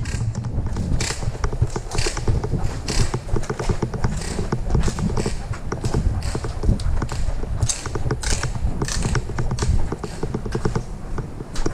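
Footsteps of a player on the move, with gear knocking and rattling in an uneven series of knocks and clicks over a low rumble.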